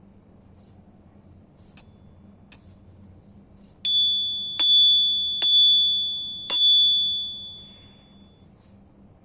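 Bicycle bell: two short light pings, then rung four times, each ring a clear metallic ding that overlaps and fades away, the last one dying out near the end.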